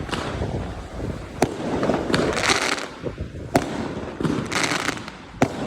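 New Year fireworks going off: several sharp bangs, about a second or two apart, with two spells of dense crackling from crackle-effect shells in between.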